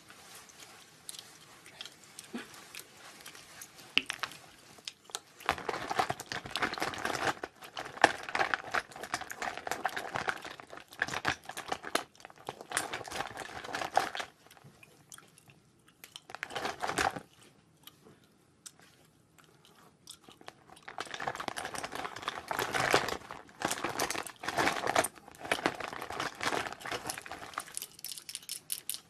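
Close crinkling and rustling of things handled in a plastic cosmetic pouch. It comes in two long stretches of dense crackle with a quieter gap in the middle.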